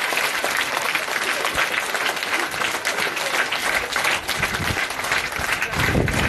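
A large crowd of children applauding, many hands clapping steadily and densely. A low rumble comes in near the end.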